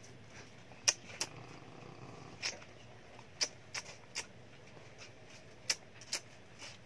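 Small dog being petted by hand: about eight short, sharp clicks and smacks at uneven intervals, over a faint low hum.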